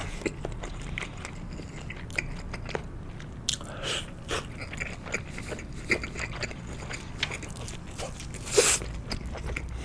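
Close-miked eating of sushi: soft chewing with scattered small wet clicks and crackles, and one louder, longer noisy mouth sound about eight and a half seconds in.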